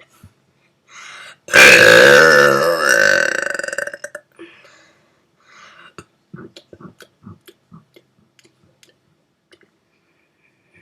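A person's long, loud burp, about two and a half seconds, starting about a second and a half in; its pitch wavers and breaks into a crackle as it trails off.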